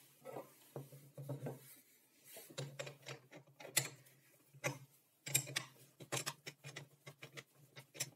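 A small wrench clicking and clinking against steel nuts and bolts as the nuts are tightened onto bolts set in a wooden block. The light metal clicks come in an irregular run.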